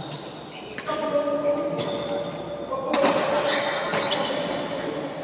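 Badminton rackets striking a shuttlecock in a fast rally, sharp smacks about once a second. Held tones run over the hits from about a second in.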